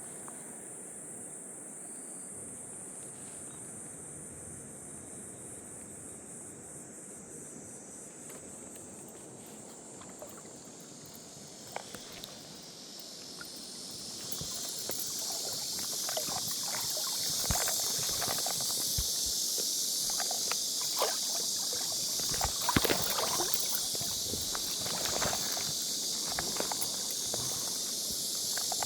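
Legs wading through a shallow stream, sloshing and splashing irregularly, against rushing water that grows louder from about halfway in. A high, thin insect drone sits in the first half.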